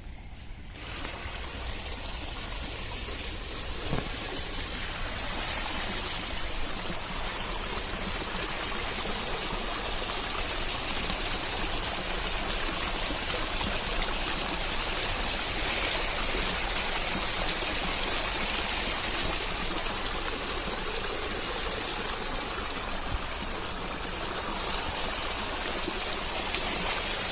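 Rainwater rushing in a steady, noisy flow during heavy rain, coming up about a second in.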